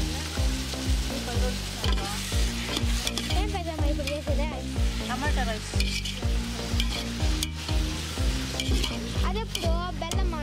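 A ladle stirs chopped tomatoes, onions and green chillies in a large aluminium pot, with a steady hiss. Background music with a steady beat and a melody runs underneath.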